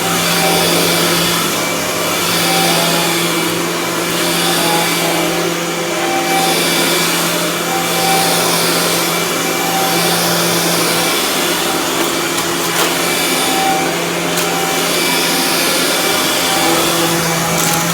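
Dirt Devil Ultra Vision Turbo upright vacuum cleaner running steadily on carpet, its hiss swelling and easing about every two seconds as it is pushed back and forth.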